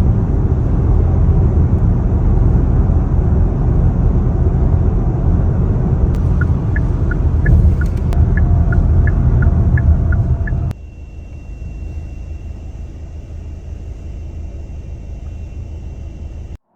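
Car road noise heard inside the cabin: a loud, steady low rumble, with a run of light ticks about three a second for a few seconds in the middle. About ten seconds in it drops sharply to a much quieter steady hum.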